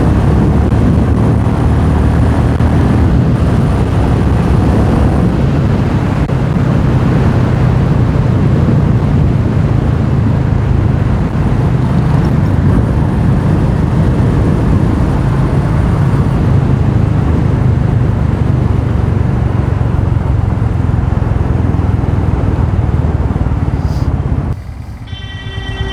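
Royal Enfield Meteor 350 single-cylinder engine running steadily under way, mixed with wind rush on a helmet-mounted camera's mic. Near the end the noise drops suddenly, as when the bike slows, and a short high-pitched tone sounds.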